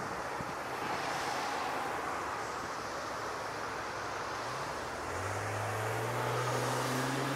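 Airbus A330's jet engines running as the airliner rolls along the runway: a steady rushing noise. About five seconds in, a low drone comes in, rising slightly in pitch and growing a little louder.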